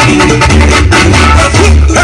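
Loud Latin-style music with guitar, played through a car sound system, with heavy pulsing bass from an 18-inch Vulcanos subwoofer.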